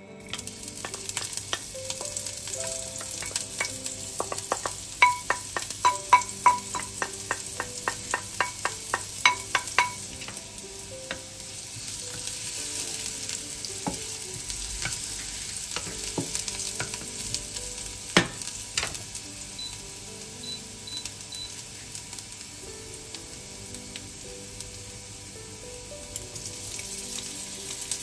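Diced onion sizzling in hot oil in a nonstick frying pan while being stirred with a wooden spatula. A run of quick ringing taps comes about five to ten seconds in, and there is a single sharper knock later on.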